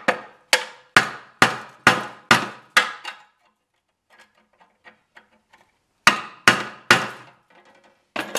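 A hammer striking a screwdriver held against a brazed patch inside an aluminum irrigation pipe, trying to punch the patch out: seven quick blows about two a second, a pause with a few light taps, then four more blows. The brazed repair holds.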